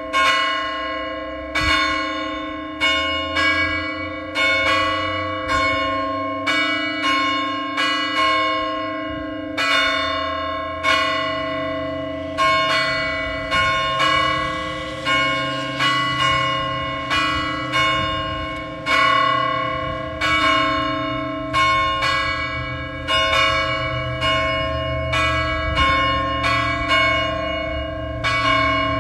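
Church bells ringing in a peal: bells of different pitches struck one after another, about one stroke a second, each tone ringing on and overlapping the next.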